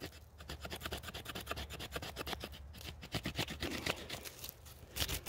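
Spyderco Bushcraft knife's O1 steel spine scraping along a branch, a quick irregular run of scratchy strokes shaving off bark and fluffy wood shavings for tinder.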